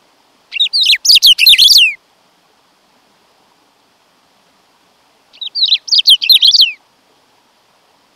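Black-throated saltator (bico-de-pimenta) singing two short phrases of quick, sharp whistled notes that slide downward, each phrase about a second and a half long, some four seconds apart.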